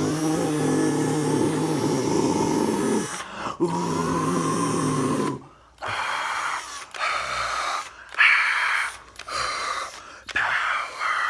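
A man's voice making drawn-out growling and grunting noises: one long low held sound for about three seconds, then a series of rough, breathy bursts with short pauses between them.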